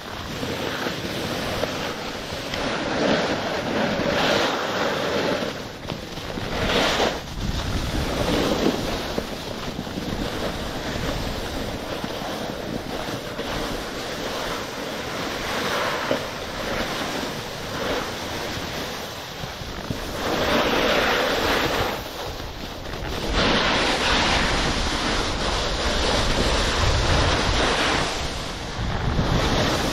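Wind rushing over the microphone and the hiss of skis sliding over snow while skiing downhill, swelling and fading every few seconds.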